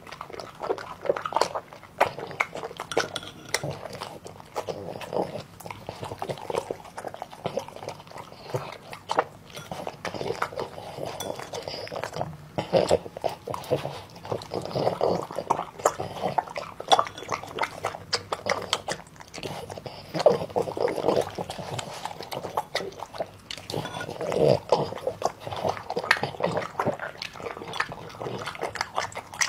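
French bulldog eating noodles and food held out on chopsticks: wet chewing, smacking and slurping, with many quick clicks throughout.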